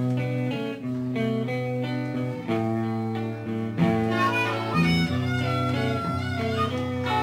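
Instrumental intro music with guitar. A wavering, pitch-bending lead line comes in about four seconds in.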